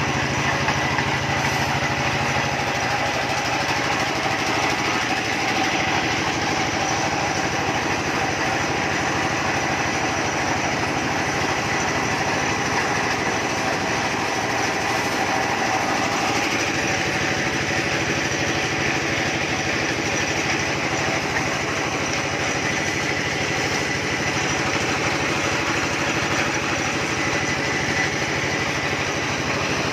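Small engine of a well-drilling rig running steadily at a constant speed.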